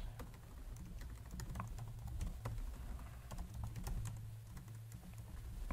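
Typing on a computer keyboard: a quiet, irregular run of keystroke clicks as text is entered.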